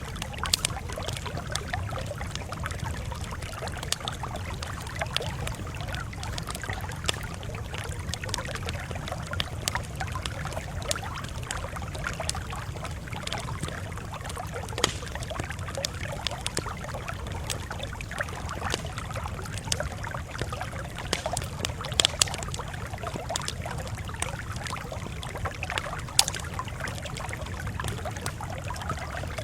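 Campfire crackling: irregular sharp pops and snaps scattered over a steady low rumble.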